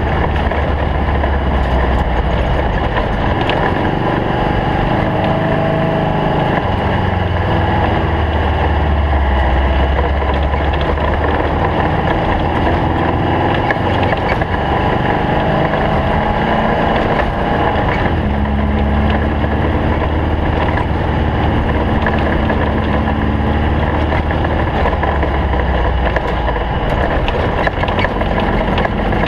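Air-cooled Volkswagen flat-four engine of a stock-bug off-road race car running hard, its note changing pitch several times as the revs rise and fall.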